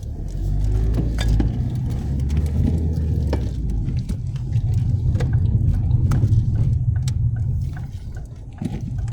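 Car running, heard from inside the cabin: a steady low rumble of engine and road noise, with scattered light clicks and knocks.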